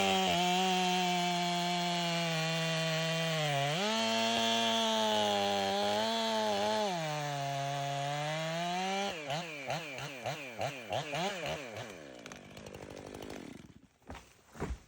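Stihl chainsaw running at high revs while cutting into a tree trunk, its pitch sagging under the load of the cut and recovering twice. About nine seconds in, the pitch starts warbling rapidly up and down, then the saw winds down and stops near the end, followed by a short knock.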